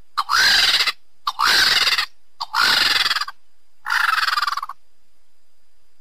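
Black vultures hissing: four harsh hisses about a second apart, each just under a second long and opening with a short rising squeal. They stop about three-quarters of the way through.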